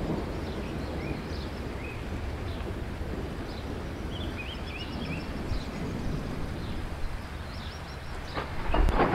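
Thunder rumbling low and steady from a nearby thunderstorm, with a louder peal of thunder building near the end. Small birds chirp over it.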